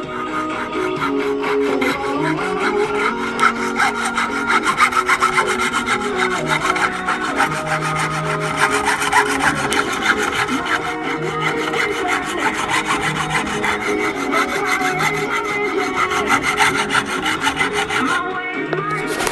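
Hand saw cutting through bone in rapid back-and-forth strokes, with radio music playing underneath.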